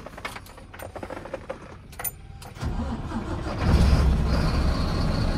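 BharatBenz truck's diesel engine being started from inside the cab. A few light clicks, then about two and a half seconds in the starter cranks and the engine catches, running louder and steady from about a second later.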